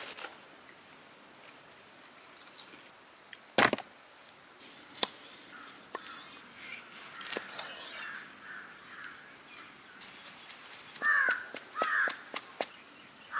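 A cleaver striking a wooden chopping stump: one heavy knock a few seconds in, then a quick run of light chops near the end as curry leaves are shredded. Crows caw twice over the chopping.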